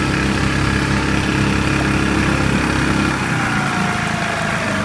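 Four-stroke outboard motor pushing an inflatable boat at speed, running steadily, with water rushing past in the wake. About three seconds in, the deep part of the engine note drops away.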